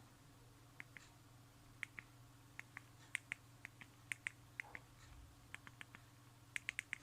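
Mobile phone keypad buttons being pressed one after another as a long number is keyed in: about twenty small, sharp clicks at an uneven pace, many coming in quick pairs, over a steady low hum.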